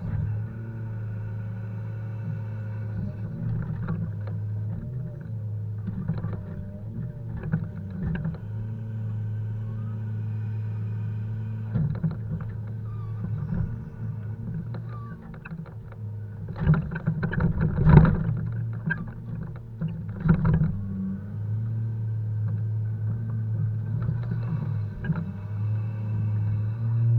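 Volvo FH 520 logging truck's six-cylinder diesel engine running steadily during unloading of poplar logs. Heavy knocks and clatter about two-thirds of the way through, the loudest moment, as logs are handled and dropped.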